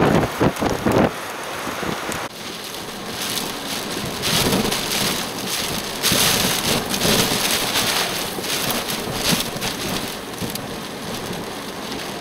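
Storm wind and heavy rain. Wind buffets the microphone in the first second, then gives way to a steady rushing hiss of rain that swells about four and again six seconds in.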